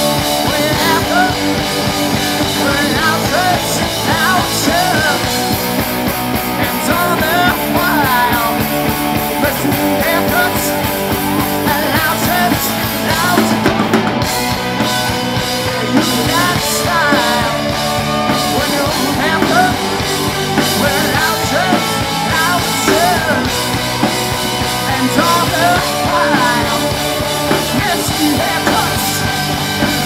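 Live rock band playing loudly: electric guitars, bass guitar and a drum kit.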